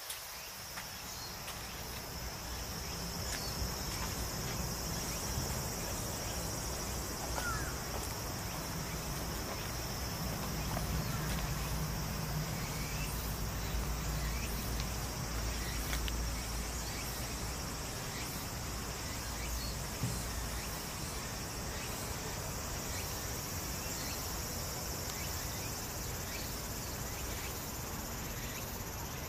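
Insects trilling steadily in a high, even band, over a low rumbling noise that swells in the middle.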